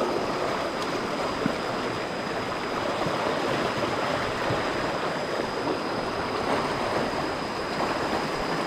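Muddy rainwater runoff rushing steadily down a narrow ditch and pouring into a mesh fishing net set across the current.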